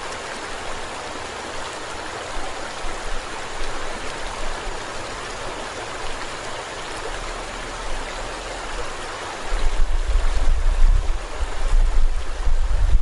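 Steady rushing of a swollen river's flowing water. From about three quarters of the way in, wind buffets the microphone with gusty low rumbling.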